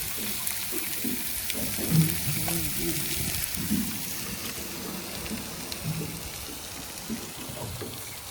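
Kingfish fillets sizzling in a hot frying pan, a steady hiss.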